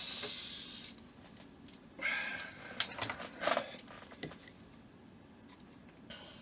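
Small clicks and light rustling from plastic model-kit parts being handled and fitted, with a couple of short breaths or sniffs near the start and about two seconds in.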